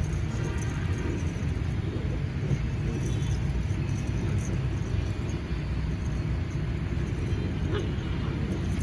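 Steady low outdoor rumble at an even level, with no clear distinct events.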